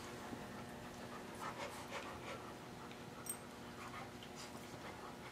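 A dog panting softly in short, uneven breaths.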